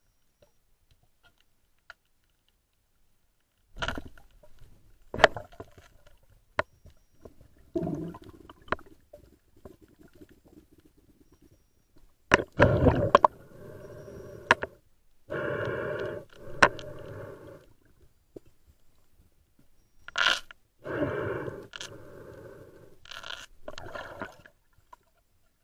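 Sound picked up by an underwater camera: sharp knocks and scrapes on the housing, then several noisy rushes lasting a second or two each.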